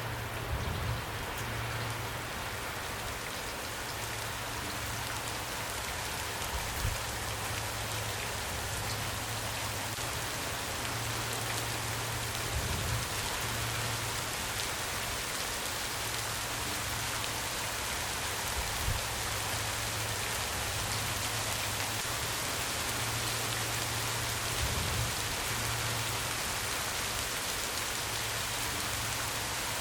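Steady rain falling, a dense even hiss, with a brief soft knock about every six seconds.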